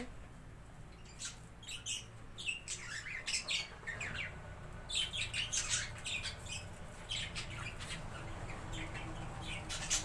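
Small caged parakeets, budgerigars, chattering: many short high chirps and squawks overlapping, busiest in the second half.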